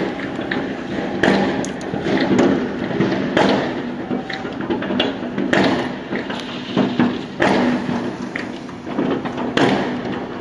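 Fireworks going off across a city: many bangs, cracks and booms at irregular intervals, overlapping one another with no real pause.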